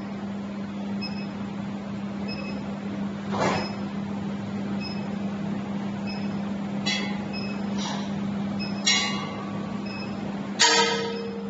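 Portable induction heater running with a steady hum while its coil heats a steel part. A few sharp clicks or knocks break in; the loudest comes about ten and a half seconds in and is followed by a short metallic ring.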